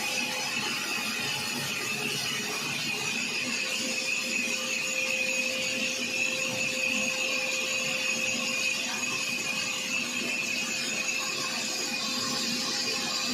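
Sawmill saw running steadily through heavy kikar (acacia) wood, a constant whine over the hiss of the cut.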